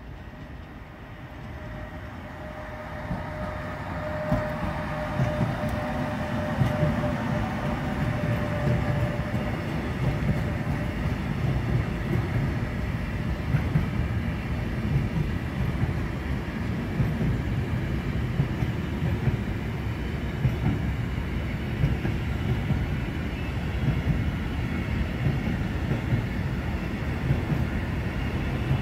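Freight train hauled by a Bombardier TRAXX E186 electric locomotive passing: the sound builds over the first few seconds, with a steady tone for a few seconds, then the long run of intermodal container wagons rolls by with wheels clicking over the rail joints.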